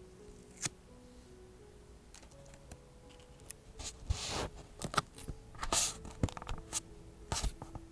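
Paper and stationery handled close up for vintage journaling: scattered sharp taps and clicks and a couple of short paper rustles, coming more often in the second half. Faint soft background music underneath.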